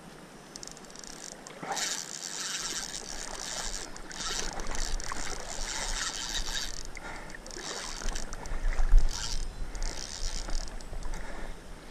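Spinning reel being cranked in short bursts every second or two against a heavy fish on the line, giving a rough, hissy grinding; the angler believes the reel's bearing is almost worn out and says it is cracking.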